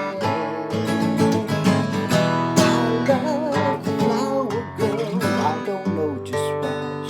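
Strummed acoustic guitar playing an instrumental passage of a pop song, with a gliding melody line above the strumming.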